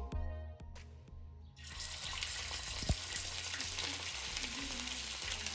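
Chicken gizzards deep-frying in hot oil: a steady sizzle that starts suddenly about a second and a half in, as background music fades out, with one sharp click a little later.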